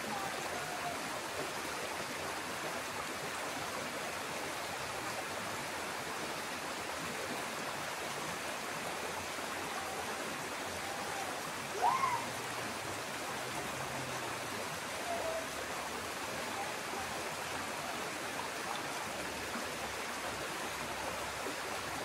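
Shallow forest stream rushing steadily over rocks. About twelve seconds in, a short rising whistle-like call stands out above the water.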